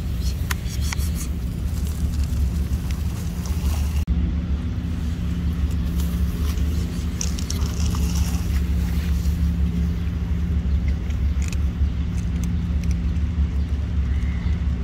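A steady low rumble, with a few light ticks about seven to eight seconds in as dry cat food is poured from a plastic cup onto the ground.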